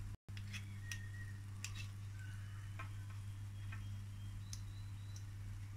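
Apple-fritter batter frying in hot sunflower oil in a deep pan: sparse soft crackles and pops over a steady low hum.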